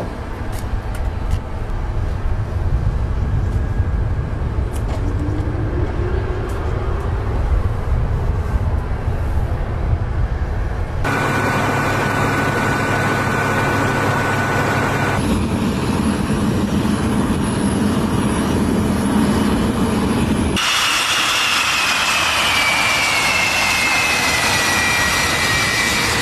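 Jet fighter engines running on an airfield, in several abruptly cut segments. A low rumble comes first, then a steady high whine, and near the end a turbine whine sliding slowly down in pitch.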